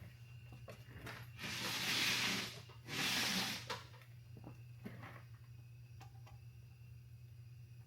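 Two short blasts of compressed air, each about a second long, with a brief gap between them, followed by a few faint clicks of parts being handled, over a steady low hum.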